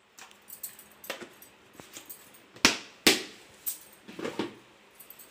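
Plastic kitchen storage jars knocking and clattering as a container is handled and set back among others on a shelf, with two sharp knocks close together about halfway through and lighter clicks around them.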